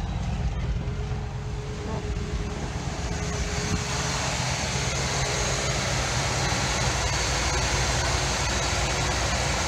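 Chevy 350 V8 of a 1976 Chevrolet C20 running steadily at idle on gasoline through its carburetor, air cleaner off. About four seconds in it gets louder and hissier.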